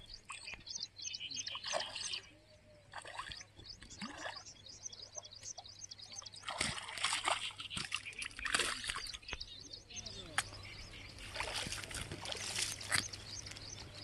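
A hooked fish splashing and thrashing at the water's surface while being played on a fishing rod, in repeated short bursts.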